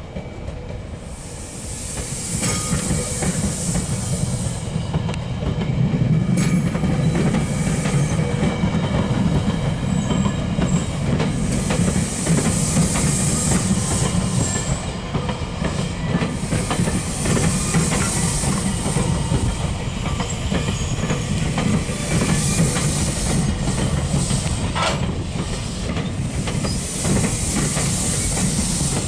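GO Transit bi-level passenger coaches rolling past behind cab car 310, wheels clicking over the rail joints over a steady low rumble, with a few brief high wheel squeals. The sound jumps about two seconds in as the cab car reaches the camera, and a high hiss rises and falls about every five seconds as the cars go by.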